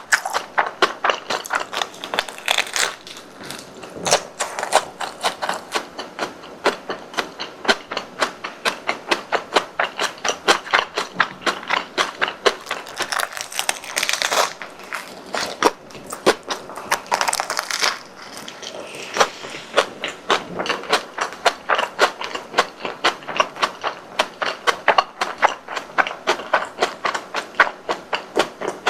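Close-up chewing of crispy deep-fried bread: rapid, close-set crunches of the crust, a few every second, with a couple of louder crackling bites.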